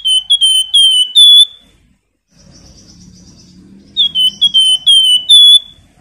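Flamboyan songbird singing two loud phrases of clear whistled notes, each a quick run of five or six notes ending on a higher, longer note; the second phrase comes about four seconds in.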